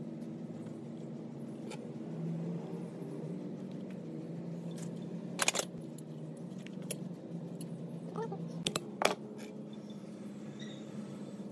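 Small metal clinks and taps as steel valve springs, retainers and T-handle tools are handled on a D15 diesel engine's cylinder head. The sharpest clinks come about five and a half seconds in and twice close together near nine seconds, over a steady low hum.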